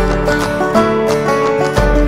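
Instrumental background music, quick pitched notes over a deep bass line.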